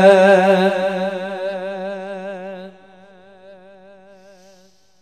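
Man reciting the Quran (tilawat), holding the last vowel of "yabghiyan" as one long wavering note. It fades, drops away sharply a little before halfway, lingers faintly, and dies out near the end.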